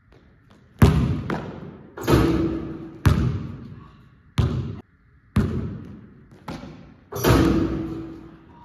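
A basketball bouncing on a hard indoor court: about eight loud thuds at irregular intervals, each trailing off in a long echo around the large hall.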